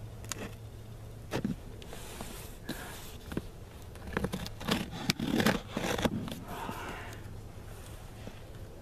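Scissors scraping and cutting through the packing tape on a cardboard box, with irregular clicks, scrapes and crackles of the cardboard, busiest about halfway through.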